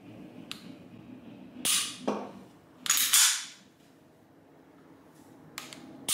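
Walther PDP pistol being dry-fired, unloaded: sharp metallic snaps and clicks from its trigger and striker, two louder snaps about 1.7 and 3 seconds in and lighter clicks around them. The clicks show the short trigger reset of the PDP's trigger.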